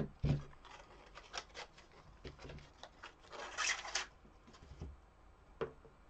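Covered copper wire being bent and twisted together by hand, its covering rubbing and scratching against itself and the fingers in short scrapes and small clicks, with a longer rubbing stretch about three and a half seconds in. A sharp tap comes at the very start.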